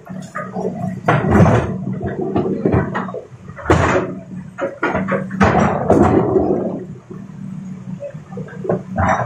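Large Hitachi excavator's diesel engine running steadily while big rocks scrape and crash as they are scooped and dumped, in several loud bursts: a little over a second in, about four seconds in, and around five to six seconds in.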